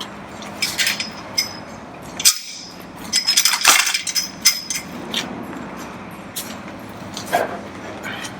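A scattered series of light metallic clinks and knocks, the busiest stretch between about three and four and a half seconds in, over a steady low hum.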